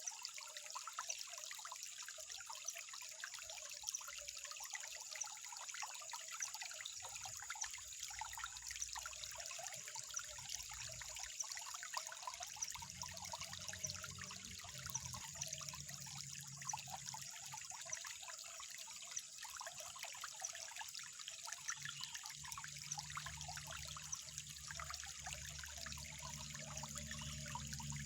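Water trickling steadily, a dense, even patter of small splashes and drips.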